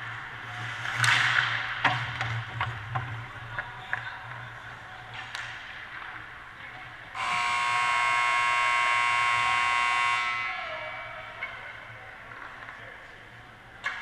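Ice rink buzzer sounding for about three seconds, a steady many-toned blare that sags slightly in pitch as it dies away. Before it come a skate scrape and several sharp clacks of sticks and puck.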